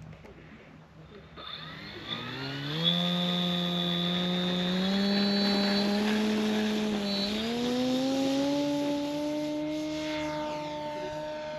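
Radio-controlled Hawker Tempest model's motor and propeller throttling up for a takeoff run on grass. It starts about a second and a half in and climbs in pitch in steps, with a thin high whine on top, then runs steadily at a higher pitch for the rest of the run.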